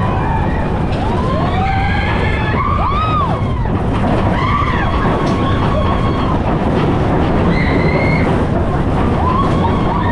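Mine-train roller coaster running on its track with a loud, steady rumble, overlaid by a string of high squeals that rise and fall in pitch.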